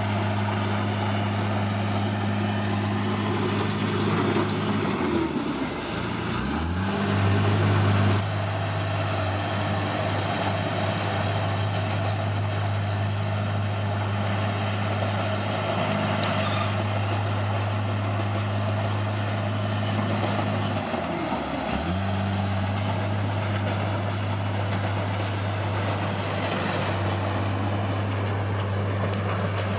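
Caterpillar D6R bulldozer's diesel engine running steadily. Its pitch dips and picks back up twice, about five seconds in and about twenty-one seconds in.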